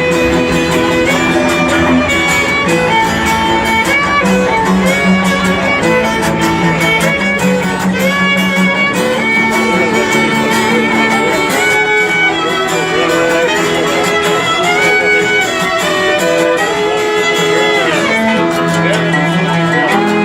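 Live instrumental music: a violin plays a melody of held notes over a lower string accompaniment.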